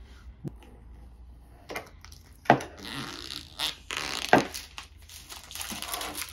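Clear plastic sealing film being slit and peeled off a cardboard laptop box: the film crinkles and rustles, with two sharp snaps about two seconds apart.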